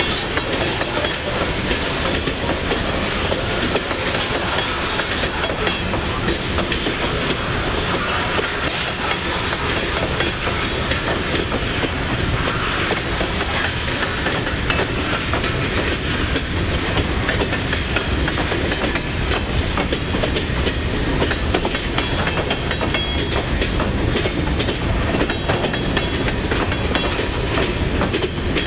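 Union Pacific freight train's cars rolling past: a steady rumble of steel wheels on the rails with the clickety-clack of wheels passing over rail joints.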